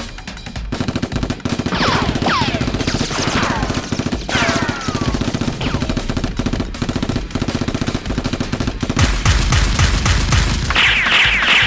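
Long bursts of rapid automatic gunfire, a dense stream of sharp shots, growing louder near the end, with several falling whistling tones over the shots.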